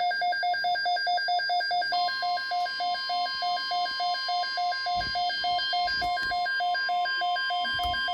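Midland WR300 weather radio sounding its alert: a rapid beeping, about three beeps a second, joined about two seconds in by the steady NOAA Weather Radio warning tone. This signals an incoming alert, here a severe thunderstorm watch.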